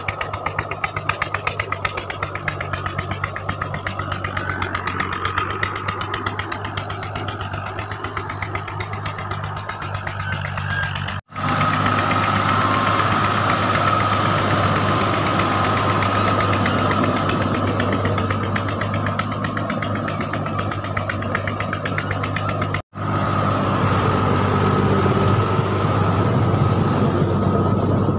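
Diesel engine of an Al-Ghazi tractor running steadily with a fast even beat, driving a rotavator that churns a flooded rice field into mud. The sound drops out for a moment twice.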